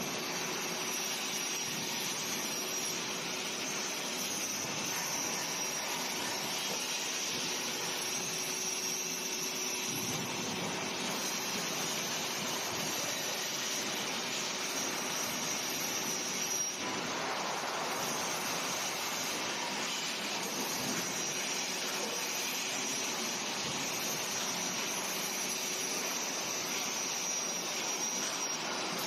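Angle grinder grinding a welded steel-rod frame: a steady rushing hiss with a thin high whine, its character shifting a little about halfway through.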